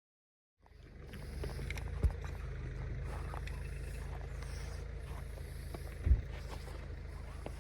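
Steady low rumble with a faint even hum in it, fading in near the start, with two sharp thumps, about two seconds in and near six seconds, the second the louder.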